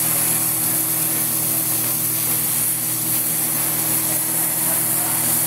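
Oxy-acetylene welding torch flame hissing steadily, with a steady low hum underneath.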